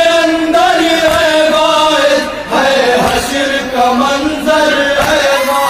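A group of men chanting an Urdu noha (Shia Muharram lament) in unison into microphones, holding long mournful notes, with a dull chest-beating (matam) thump about once a second.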